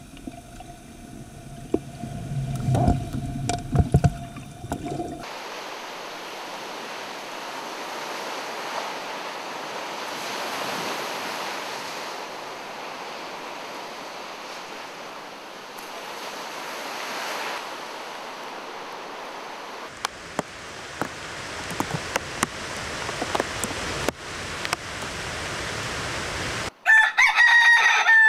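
A steady rush of breaking surf runs for most of the stretch. Near the end a rooster crows loudly.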